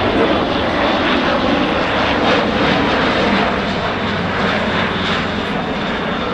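Airbus A400M in flight, its four TP400 turboprop engines and eight-bladed propellers giving a loud, steady drone with a deep propeller hum, easing off slightly near the end.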